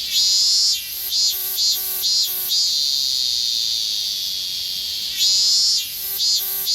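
Higurashi cicadas (evening cicada, Tanna japonensis) calling over a steady high buzz. A call of one long note followed by a run of short, quick notes comes twice, about five seconds apart.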